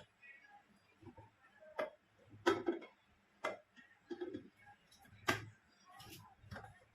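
Sharp clicks and knocks at an uneven pace, about seven of them, typical of things being handled and set down during kitchen work.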